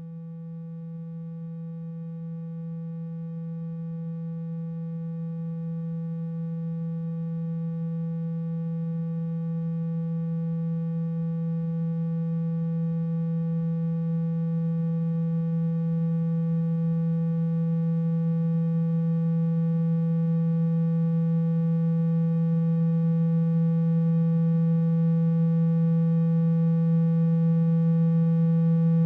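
A steady low electronic tone with faint higher overtones, slowly growing louder: a speaker-cleaning tone played to vibrate water and dust out of a phone's speaker.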